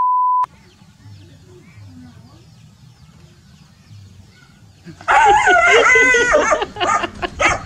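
A short steady test-tone beep, then faint background. About five seconds in, loud animal cries break out, stepping down in pitch and then going on as short repeated cries.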